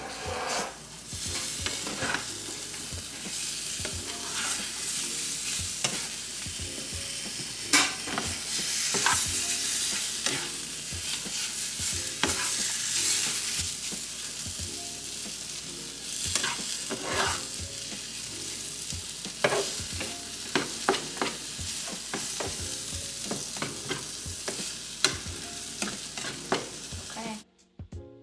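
Potatoes with melting Gouda cheese sizzling in a frying pan while being stirred, with a utensil repeatedly scraping and knocking against the pan. The sound cuts off abruptly near the end.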